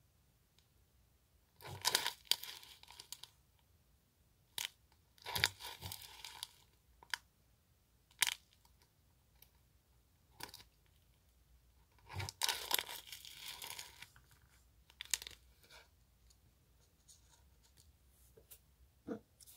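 Thin plastic zip bag crinkling as it is squeezed and a stick scoops glitter flakes out of it, in three rustling spells of a second or two, with single small clicks and taps in between.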